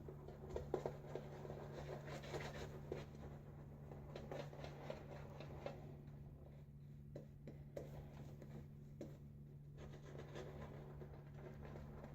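Badger-hair shaving brush working shaving-soap lather, a faint, irregular scratchy swishing of bristles with small wet ticks.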